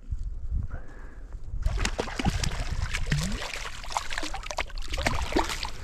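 Creek water splashing and gurgling, which comes up suddenly about two seconds in, over a low rumble.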